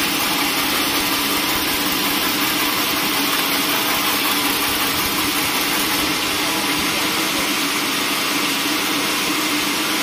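Band sawmill running steadily, its blade sawing through a squared timber beam: a continuous machine hum under a dense hiss.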